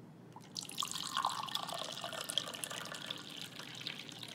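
Coffee poured from a black carafe into a glass: a steady splashing stream that starts about half a second in and stops near the end.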